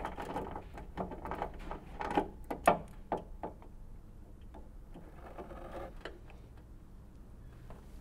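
Ratchet with a 10 mm socket clicking rapidly as it backs out a trunk-latch bolt, with a few sharper clicks about two to three seconds in. After about three and a half seconds the clicking stops, leaving faint handling noise.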